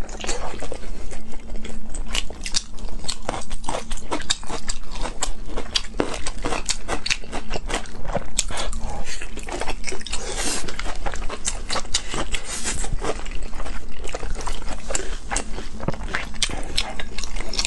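Close-miked wet chewing and lip smacking of soft, chewy sauce-coated rolls: a dense, irregular stream of sticky clicks, with a longer slurp about ten seconds in.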